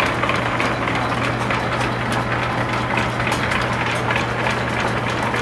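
Antique Champion post drill press running under line-shaft belt power: a steady mechanical hum with a low tone, and its gears making a little noise as a run of light, rapid ticks.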